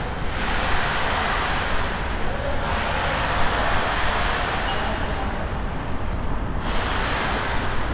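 Road traffic noise: a continuous low rumble with swelling whooshes every couple of seconds as vehicles pass.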